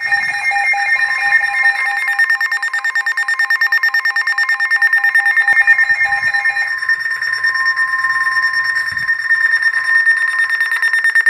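Weather alert radios sounding a severe thunderstorm warning alarm: loud, rapid electronic beeping at several pitches at once, over a steady lower tone that matches the 1050 Hz NWS warning alarm tone. The lowest of the beeping tones drops out about seven seconds in.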